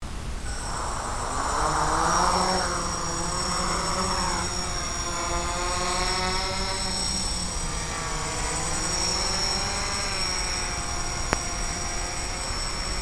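Electric motors and propellers of a Quadrixette 30 FPV quadcopter whining, their pitch rising and falling with the throttle as it lifts off and flies low, with a rush of noise in the first couple of seconds. A single sharp click comes about eleven seconds in.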